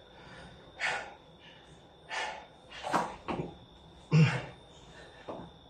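A person's hard, sharp breaths mixed with the thuds of hands and feet landing on an exercise mat during a Navy SEAL burpee, about six short bursts.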